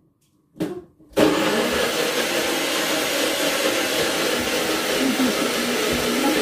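Countertop electric blender switched on about a second in, starting suddenly and then running steadily. It is grinding a spice paste of chillies, shallots, garlic, ginger and candlenuts with a little water and oil.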